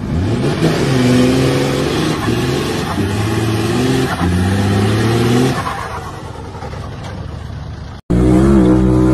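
Lifted 4x4 wagon's engine revving hard in repeated rising surges while it spins its wheels in loose dirt, tailing off after about five seconds. Near the end a sudden cut brings in a louder, steady engine note from another off-road vehicle.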